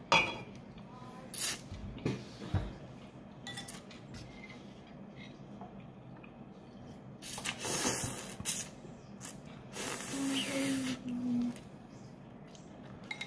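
Noodles being slurped off chopsticks: a few short sucking slurps early on, then two longer drawn-out slurps of about a second each, in the middle and near the end, with light clinks of chopsticks against the bowl.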